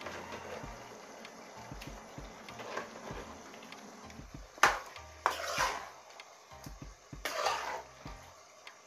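Raw chicken pieces going into a pot of cooked masala: a sharp clank of metal on the pot about halfway through, then two short hissing bursts as the meat goes in.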